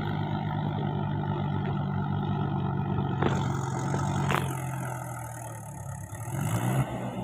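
Diesel tractor engine running steadily. It eases off about two-thirds in and picks up again near the end, with a couple of sharp clicks in the middle.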